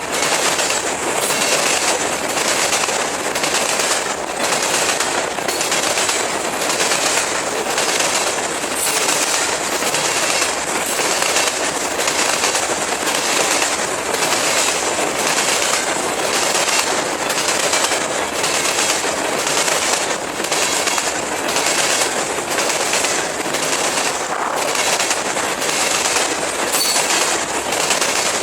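CSX freight train rolling past at speed, its wheels clacking over the track in a steady rhythm of about one and a half clacks a second above a continuous rumble.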